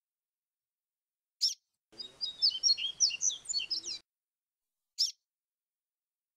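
Yellow-bellied seedeater (papa-capim) singing a quick phrase of clear, whistled notes in the breeders' "grego flautado" song style, about two seconds long. The phrase falls between two single sharp call notes, one before it and one after it.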